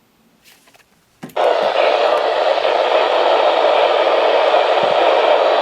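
A click, then loud, steady static hiss from a weather radio's speaker, starting suddenly about a second and a half in.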